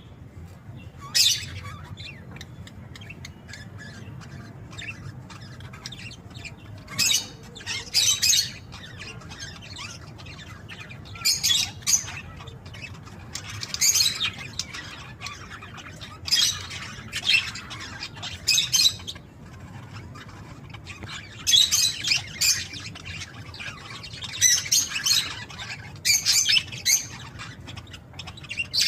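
Pet budgerigars chirping and squawking in short bursts every few seconds, over a low steady background hum.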